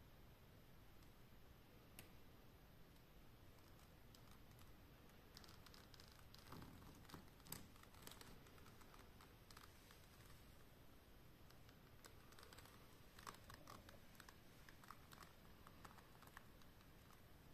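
Near silence: faint room tone with scattered small clicks and rustles, a little busier about a third of the way in and again past the middle.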